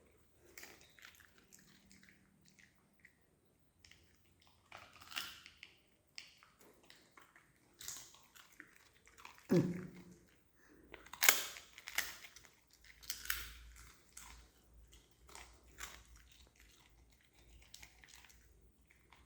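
Crisp jackfruit papad being bitten and crunched in irregular crackles, loudest about halfway through. A short low sliding sound comes in just before the loudest crunches.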